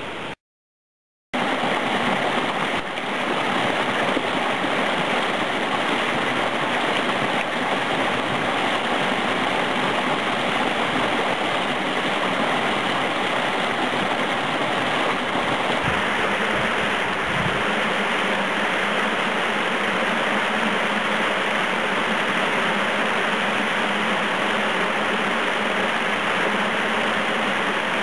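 Mountain-valley stream running over rocks and under ice, a steady rushing of water. The sound drops out completely for about a second near the start, at an edit cut, then runs on unchanged.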